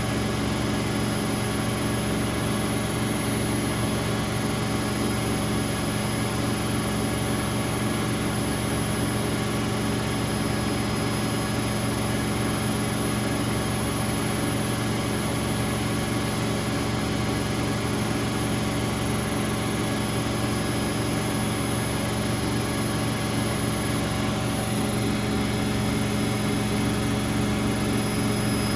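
Bauknecht WA Aquaton 1400 front-loading washing machine spinning its drum at a steady high speed, a constant motor hum and whir with no change in pitch, typical of the final spin of a cottons programme.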